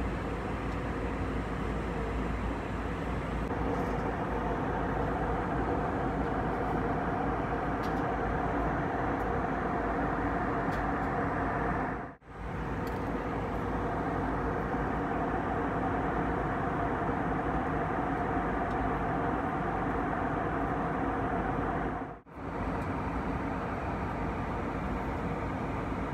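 Steady jet airliner noise, engine and air rush heard from on board, with a faint steady hum. It drops out briefly twice.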